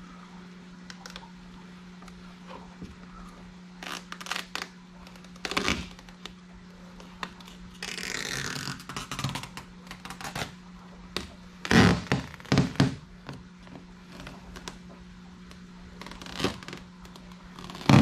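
Peeling and handling of vinyl-wrap backing paper and tape: scattered crinkles and scrapes, a longer rustling peel about eight seconds in, and several sharp knocks about two-thirds of the way through and again at the very end, over a steady low hum.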